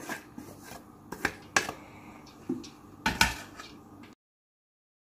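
Wooden spatula tapping and scraping against a steel pot and a bowl as boiled rice is spooned out and spread into a layer: a few sharp knocks, the loudest about three seconds in. The sound cuts off to silence about four seconds in.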